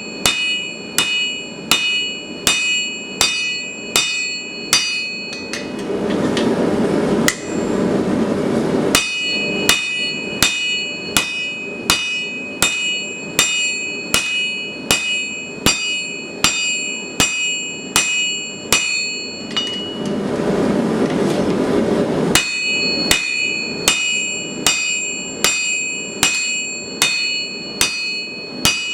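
Blacksmith's hammer striking steel on an anvil, about two blows a second, each blow ringing high and clear. Twice the hammering stops for a few seconds while a steady rushing noise fills in, then resumes.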